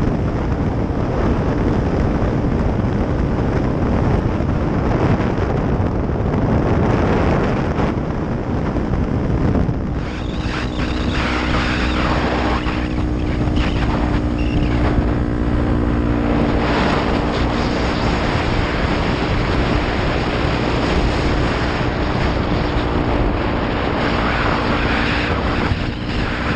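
Wind noise on a helmet camera over a 2015 Honda Grom's 125 cc single-cylinder engine with a Pro Circuit aftermarket exhaust, running at a steady road speed. About ten seconds in, the wind rush eases and a steady engine tone comes through clearly.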